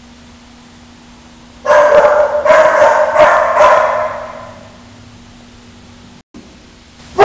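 A dog barking: a run of about five high, drawn-out barks that starts about two seconds in and trails off after about four seconds.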